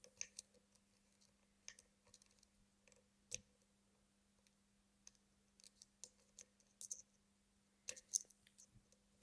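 Faint, irregular small clicks and light scratches of a lock pick working the pin stacks of a circular-keyway lock, one pin at a time, with a slightly louder click about three seconds in and a small cluster near the end.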